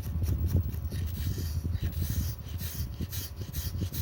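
Razor blade scraping back and forth over an LCD screen wet with isopropyl alcohol, in quick repeated strokes, lifting old glue residue off the glass. A steady low hum runs underneath.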